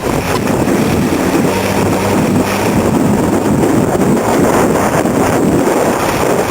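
Suzuki Samurai 4x4 driving off-road, its engine running under a steady rush of noise.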